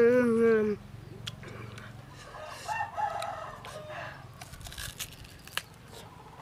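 A loud, long wavering call cuts off under a second in. It is followed by crisp bites into a firm green mango and chewing, with a few short sharp crunches and clicks.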